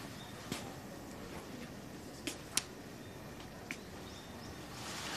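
Quiet room tone with a few scattered light clicks and taps, the sharpest about two and a half seconds in.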